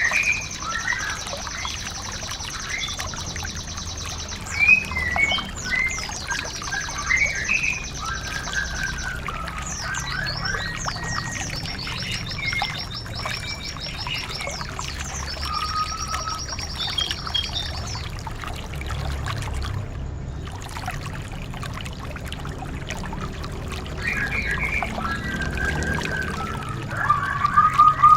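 Recorded songbird song used to train white-eyes: fast high trills and chirping phrases from several birds over a steady trickle of running water. Near the end comes a loud run of quick, repeated lower notes.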